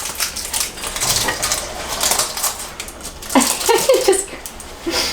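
Crinkling and clicking of a hard candy's wrapper being handled and opened, in quick irregular crackles. A short vocal sound comes in a little past the middle.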